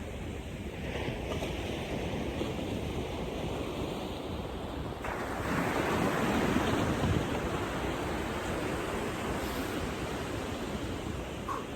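Sea surf washing on the shore, with one wave swelling louder about five seconds in, and wind buffeting the microphone.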